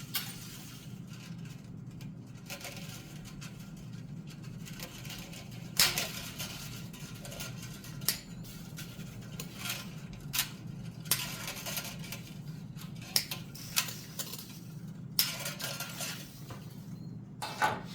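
Steel MIG welding wire being cut with snips: about eight sharp metallic snips at irregular intervals, with light clinks of wire in between. A steady low hum runs underneath.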